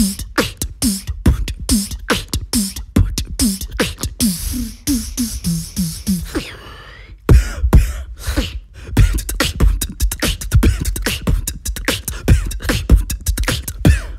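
Human beatboxing: a vocal beat of mouth-made kicks and snares with short bass notes that drop in pitch, repeated in a steady rhythm. A little past six seconds there is a brief break with a gliding sound, then the beat returns faster and denser.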